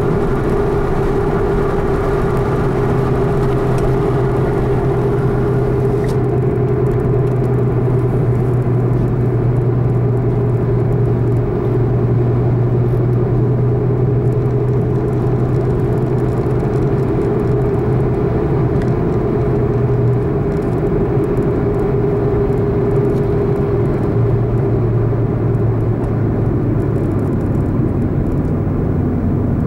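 A car's engine hums steadily under road and tyre noise while driving. Its note shifts a couple of times in the second half and drops lower near the end.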